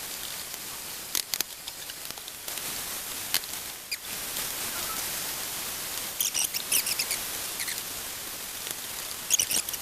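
Chicken hearts frying in a pan in their own rendered fat: a steady high sizzle with scattered crackling pops, thickest about six to seven seconds in and again near the end. The water has cooked off and the hearts are starting to brown.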